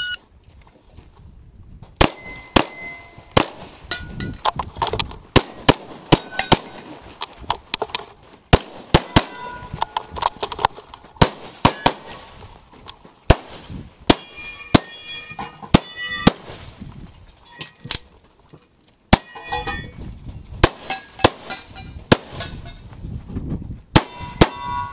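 Pistol shots from a CZ 75 SP-01 Shadow fired in quick strings during an action pistol stage, with a short pause about two-thirds of the way in. Metallic ringing follows some of the shots.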